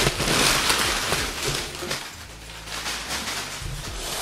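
Crumpled packing paper crinkling and rustling as it is pulled out of a cardboard box. The crackling is dense and loud for about two seconds, then drops to quieter handling.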